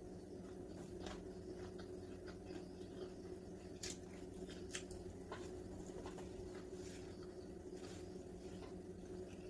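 Quiet kitchen room tone: a steady low hum with faint scattered soft clicks and squishes from food being handled.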